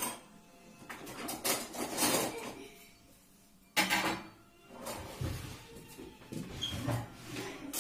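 Dishes and cutlery clattering as they are handled, in irregular bursts, with a louder clatter about a second and a half in and a sudden knock near the four-second mark.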